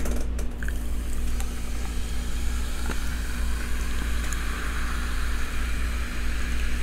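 Cola poured slowly from a glass bottle into a glass of ice, fizzing steadily as it fills, over a steady low hum.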